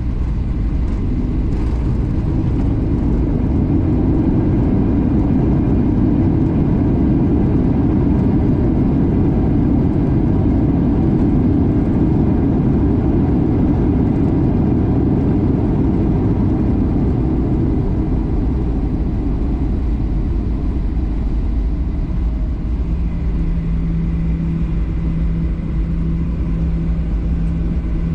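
Jet airliner cabin noise near landing: a loud, steady rumble of engines and rushing air that swells through the middle and then eases, with a steady low hum coming in about three-quarters of the way through.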